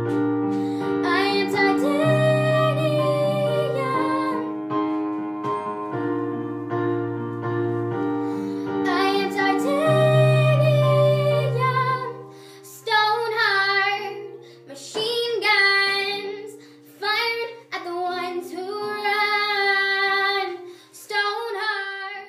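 A young girl singing a song to sustained keyboard chords. About halfway through, the chords drop away to a faint held low note and she sings on almost alone, stopping at the very end.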